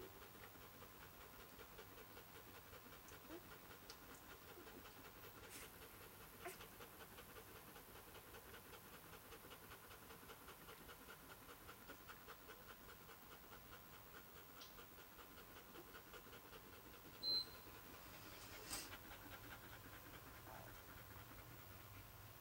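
Faint, steady panting of a nursing Northern Inuit bitch, about four breaths a second. A brief high squeak sounds about seventeen seconds in.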